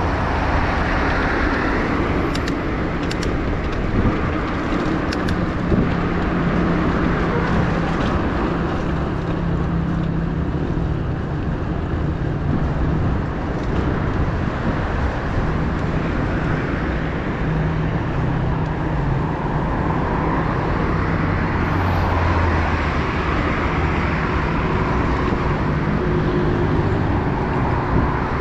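Steady rush of wind and road noise while riding a bicycle along a city road, with car traffic around, and a few faint clicks about two to five seconds in.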